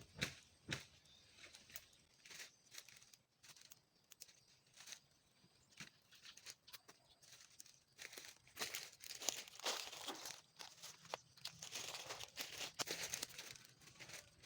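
Dry leaves and brush crackling and rustling in irregular bursts, sparse in the middle and busier over the last several seconds.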